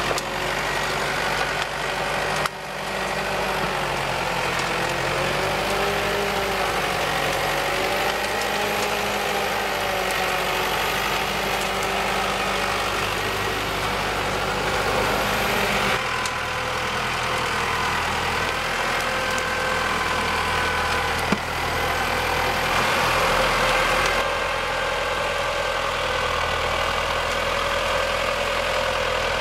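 Valtra 6400 tractor's diesel engine running as it pulls a loaded 4WD forest trailer through mud, with a whine that wavers up and down over the engine note. The sound changes abruptly twice.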